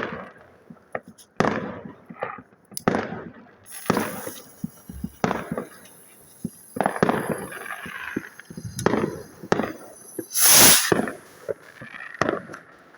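New Year fireworks going off: a string of sharp bangs and pops at irregular intervals, with a thin high hiss from about four seconds in and a loud hissing burst about ten seconds in.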